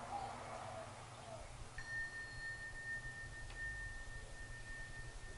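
A metal sound-healing instrument is struck about two seconds in and rings on as one steady, pure high tone. A faint higher overtone dies away within the first second of the ring. A brief click comes partway through.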